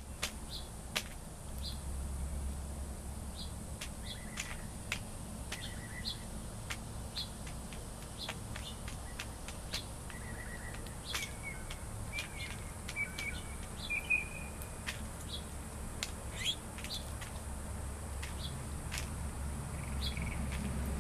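Birds chirping intermittently: many short, high chirps with a few brief trills, over a steady low rumble and a constant high hiss.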